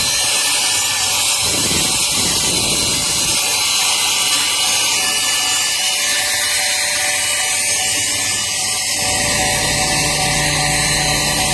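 Nikocreos mini cordless handheld vacuum running steadily: a high motor whine over a rushing airflow hiss, with a deeper rumble coming in about nine seconds in.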